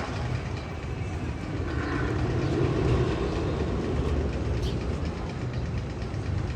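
A steady train-like rumble with rail clatter.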